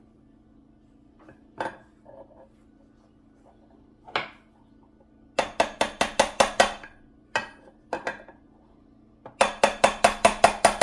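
Hammer tapping a bearing driver to drive a small bearing into its bore in a heated aluminium Honda TRX250R crankcase half, with sharp metallic clinks. A few single taps come first, then two quick runs of about eight or nine strikes, around six a second, about five and nine seconds in.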